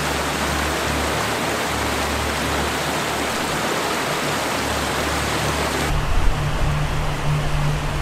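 Shallow mountain stream rushing over rocks: a steady hiss of running water. About six seconds in, the hiss drops away to a duller, lower rumble.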